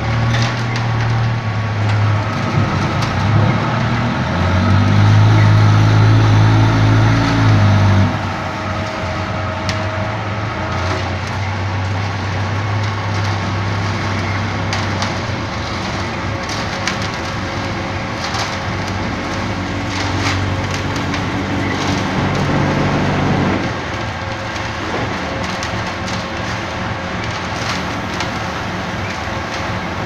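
Diesel engine of a trailer-mounted concrete mixer pump running steadily, with repeated knocking and clatter from the machine. The engine note swells for a few seconds about four seconds in, then drops back abruptly, and changes again near the end.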